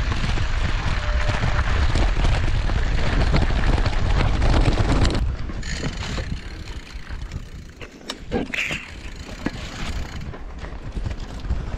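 Mountain bike riding at speed, with wind buffeting the action-camera microphone and tyre and drivetrain noise. The rush drops away sharply about five seconds in, leaving quieter rolling noise with scattered clicks and knocks.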